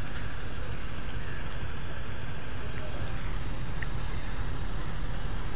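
Self-propelled river ferry СП-28 under way toward the bank, its engine giving a steady low rumble.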